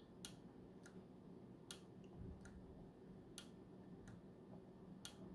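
Faint clicks from a keyboard key with an Alps Blue SKCM switch being pressed repeatedly at its off-centre corner. A sharper click comes about every one and a half seconds, with a softer click between each pair. The switch travels smoothly with no binding.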